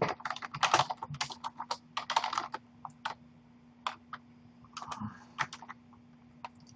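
Computer keyboard typing: a quick run of keystrokes for the first couple of seconds, then scattered single key presses that thin out toward the end, over a faint steady hum.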